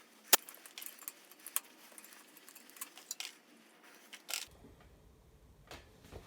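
Scattered light clicks and taps, like small hard objects being handled, with one sharp click about a third of a second in. After about two-thirds of the way through only a few faint taps remain.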